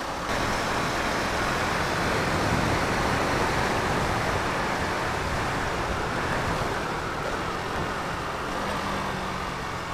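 Motorcycle riding at speed on a wet road: a steady rush of wind over the camera's microphone, with the engine's low hum underneath.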